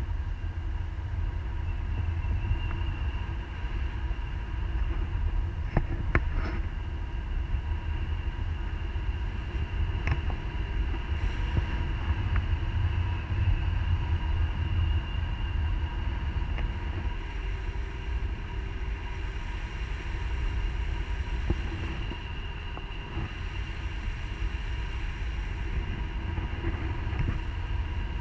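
Airflow buffeting an action camera's microphone in paraglider flight: a steady low rumble of wind noise.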